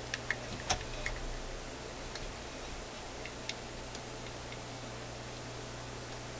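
Small irregular clicks and taps as hands work the circuit board and wires of a General Electric CC405 clock radio chassis, several in the first second and a few sparse ones later, over a steady hiss and low hum.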